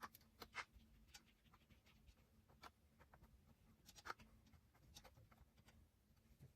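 Faint scattered clicks and light scratching: screws and a screwdriver being worked by hand inside a small PC case, a few separate ticks with quiet between them.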